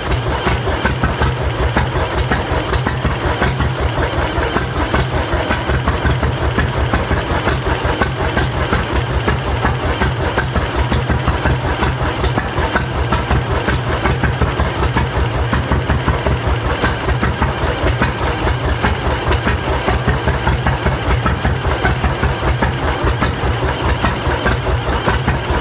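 1936 John Deere D's two-cylinder engine idling steadily with an even, regular exhaust beat, running on its own after its first start in over 25 years.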